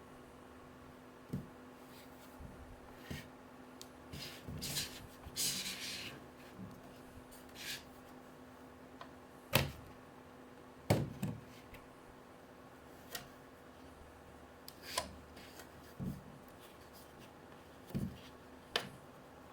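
Hands handling a rechargeable lamp and its packaging: scattered clicks and taps, and a rustling scrape about five seconds in, over a faint steady hum.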